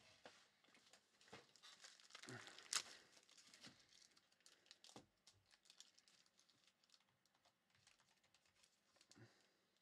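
Faint, scattered small clicks and rustling from hands at a desk, with one sharper click about three seconds in.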